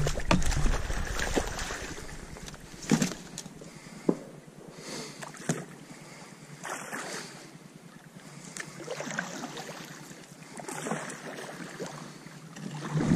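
A paddle dipping and pulling through lake water beside a small boat, with irregular splashes and knocks every second or two over a steady wash of wind and water noise.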